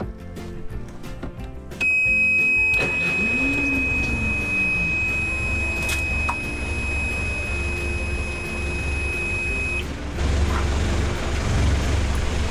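A marine diesel's oil pressure alarm sounds as a steady high beep while the freshly oil-changed engine is cranked and started. The alarm cuts off suddenly about ten seconds in as oil pressure comes up, leaving the diesel running.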